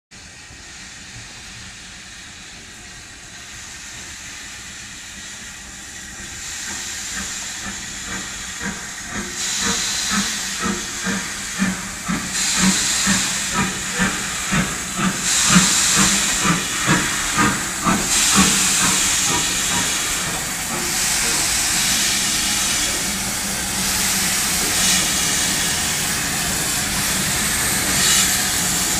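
LMS Jubilee class three-cylinder 4-6-0 steam locomotive 45699 Galatea passing close, steam hissing loudly around its cylinders and wheels, with a rhythmic chuff of exhaust beats. It grows louder as it approaches, is loudest about halfway through, and gives way to a steady loud hiss near the end.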